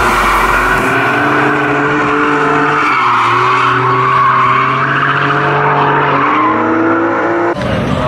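BMW E30 drift car sliding through corners, its engine revving up and down and its tyres squealing, under a music track with a steady bass line. It cuts off abruptly shortly before the end.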